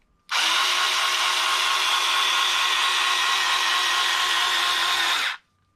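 Cordless electric scissors' small motor and reciprocating blade running at a steady pitch for about five seconds, cutting through fabric with ease. It starts and stops abruptly.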